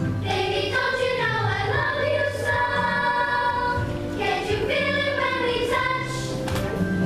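Children singing together in long, held notes over a music accompaniment, in a reverberant school hall.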